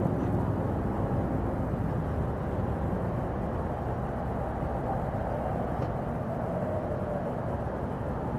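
Steady motor vehicle noise with no distinct events.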